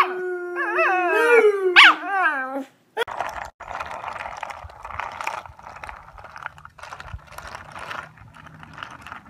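Chihuahua howling, a rising and falling howl that lasts about two and a half seconds. Then a steady rough rolling noise from a skateboard running over asphalt.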